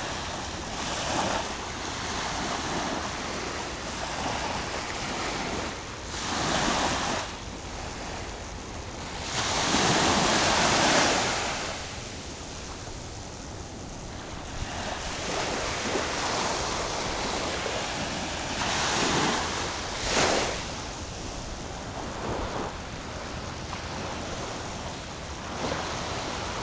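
Ocean surf: small waves washing up on a sandy beach, the wash swelling and fading every few seconds, loudest about ten seconds in, over a steady rush of wind.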